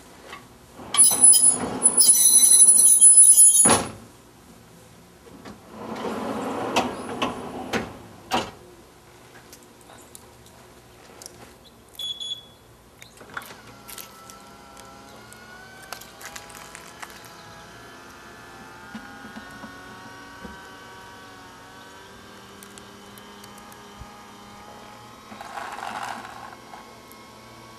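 Electric motor of a pickup's power tailgate assist running steadily for about fourteen seconds as it drives the tailgate, in the latter half. Before it there is a loud harsh burst of a few seconds with a high squeal, a shorter noisy burst, and a brief high beep.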